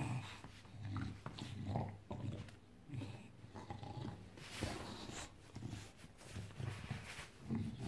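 English bulldog grunting and growling in short repeated bursts while playing.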